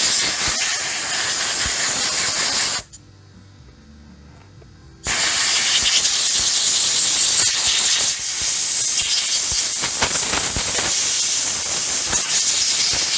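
Compressed-air blow gun hissing as it blows cleaning solution and water off a chainsaw carburetor's parts: a burst of a few seconds, a pause of about two seconds, then a long continuous blast.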